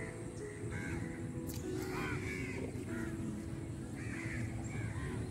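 Crows cawing repeatedly, a string of short harsh calls about once or twice a second, over a steady low background rumble.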